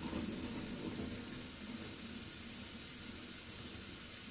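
Pieces of meat frying in a pan turned down to low heat, giving a steady, quiet sizzling hiss.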